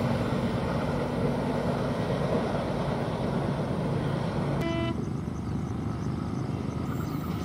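Steady engine and traffic rumble, with one short horn toot about four and a half seconds in.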